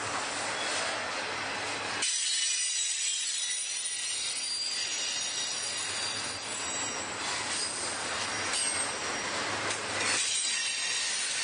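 Freight train rolling past with its wheels squealing on the rail: several high-pitched squeals ring together from about two seconds in until near the end, over the noise of the passing cars.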